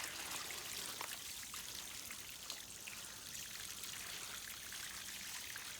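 Water trickling and dripping: a steady hiss with scattered small drips.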